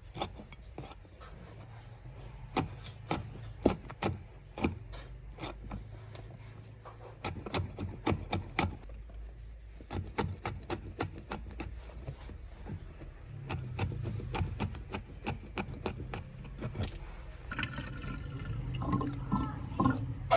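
Clam shells clicking and clattering against one another, with scraping and water sounds.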